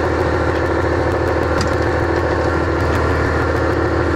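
Compressor running steadily, a constant machine drone.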